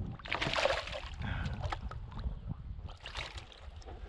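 Lake water splashing and sloshing at the side of a kayak as a small smallmouth bass is grabbed at the surface and lifted out. It comes in two bursts, one of under a second near the start and a shorter one about three seconds in, over a steady low rumble.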